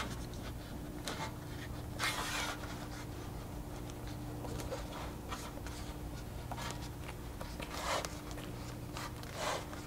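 Edge trim being pressed by hand onto the edge of a roof-rack fairing: a few brief rubbing and scraping sounds as it is worked along the press fit.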